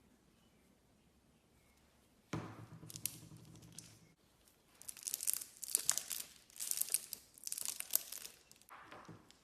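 Slime being squeezed and stretched by hand, making crisp crackling and popping in several bursts after a quiet start.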